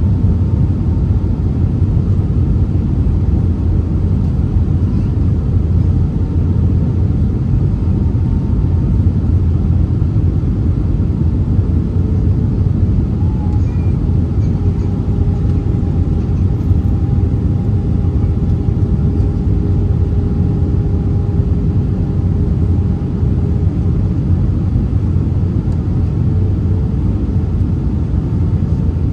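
Steady cabin noise of an Airbus A319 on approach: a loud, low rumble of airflow and engines. A faint steady hum comes in about twelve seconds in and fades away again about ten seconds later.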